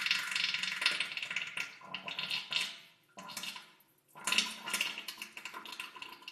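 Diarrhoea sound effect in three bursts: a long one, then two shorter ones after brief pauses about three and four seconds in.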